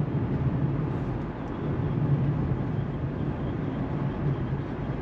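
Car driving along a road: steady low engine and road-noise rumble.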